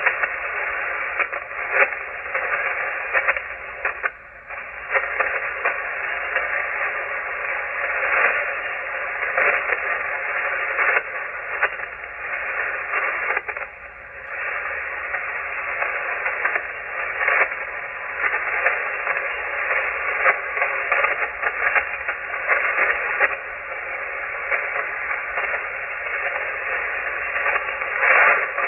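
Shortwave ham radio receiver on an empty 40-metre band frequency: a steady hiss of band noise laced with frequent crackling static crashes. The noise dips briefly about four seconds in and again near the middle.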